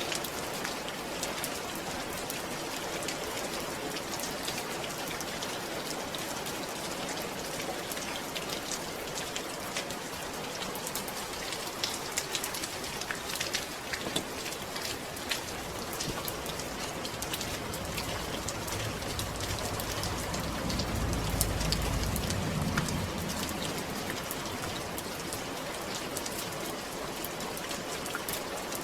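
Steady rain, with many drops pattering on a surface. A low rumble swells and fades about two-thirds of the way through.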